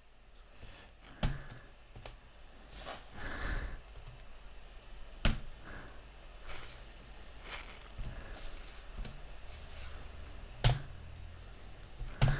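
Computer keyboard typing: scattered, irregular keystrokes and clicks a second or more apart as a line of code is entered.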